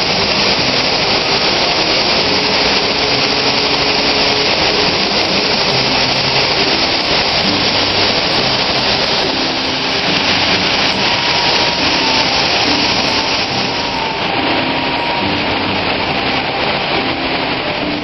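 Loud, steady rush of white water pouring over a flume's spillway and churning down a steep rocky cascade. The surplus water is being diverted from the flume into the creek at high storm flow.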